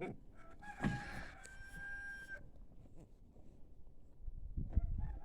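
A rooster crowing once, a held call of about a second and a half, with low thuds near the end.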